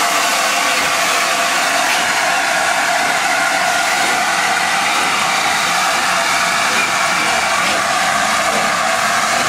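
Steady, loud hiss of steam escaping from LNER A4 Pacific locomotive 60007 Sir Nigel Gresley as it creeps past at walking pace.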